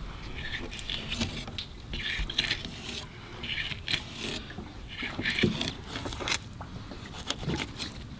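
Fillet knife slicing along a flounder's rib bones, scraping and clicking in short irregular strokes as the meat is cut free.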